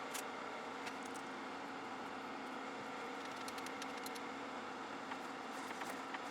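Small metalworking lathe running steadily, a constant motor hum with a few faint ticks from the work.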